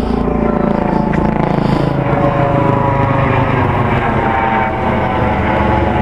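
Helicopter passing low overhead: a loud, steady rotor and engine drone whose pitch falls slowly as it goes by.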